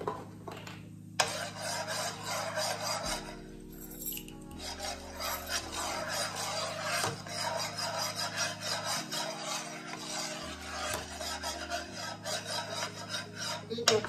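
Small metal whisk scraping rapidly and steadily around a frying pan, working flour into hot oil to make a roux for brown gravy, with a short pause about three and a half seconds in.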